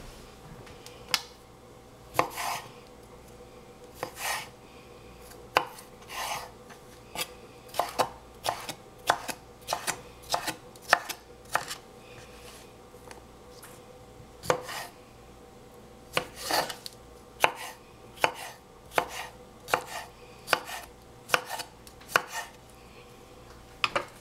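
Santoku-style chef's knife chopping dill pickles on a bamboo cutting board: uneven sharp knocks of the blade through the pickle onto the wood, sometimes several a second, with short pauses.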